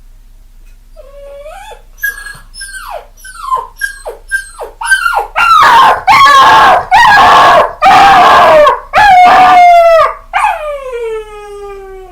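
Puppy crying: a run of short whimpers and yips, each falling in pitch, that builds about five seconds in to loud, harsh drawn-out cries, then one long whine sliding down in pitch near the end.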